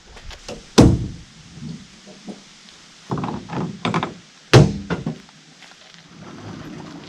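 Two heavy thunks about four seconds apart, the first a little under a second in and the second near the middle, with a run of smaller knocks and rattles between them.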